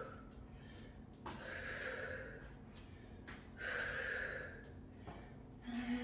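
A woman breathing hard from exertion during a kneel-to-stand exercise, with two long, forceful exhalations about two seconds apart.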